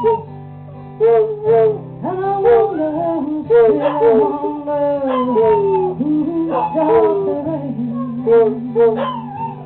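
Hound dogs, a foxhound and a beagle mix, howling along to a strummed guitar in long, wavering notes that slide down in pitch.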